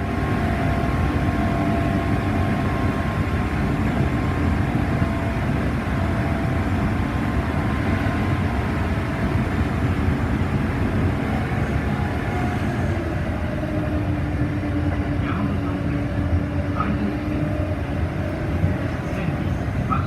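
Kintetsu 8600 series electric train slowing for a curve: steady rail running rumble with the traction motors' tones. From about 14 s in, the motor tone rises and holds for a few seconds even though the train is braking, which the uploader suspects is wheel slip briefly raising the motor speed.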